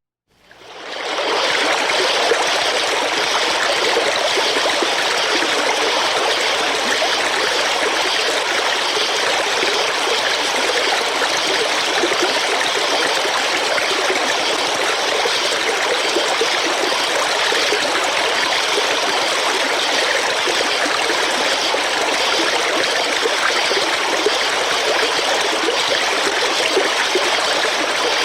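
Small stream babbling and bubbling steadily over stones, fading in over the first second.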